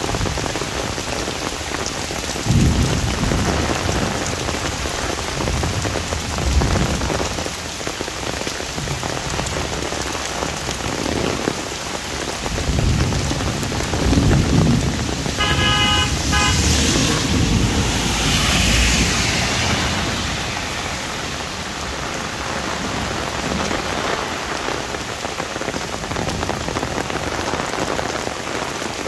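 Heavy rain pattering on an umbrella, with several low rumbles of thunder in the first half. About halfway a vehicle horn sounds a quick run of short beeps, followed by a louder hiss for a few seconds.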